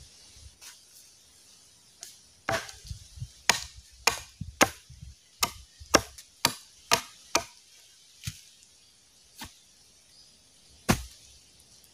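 Machete chopping into a wooden pole: about a dozen sharp blade strikes on the wood. They come at roughly two a second at first, then slow to a few spaced-out blows near the end.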